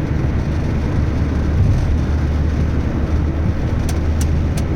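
Maruti Suzuki Swift petrol car at highway speed, heard from inside the cabin: a steady low engine and road drone. The car is running smoothly on its replacement engine. A few light ticks come near the end.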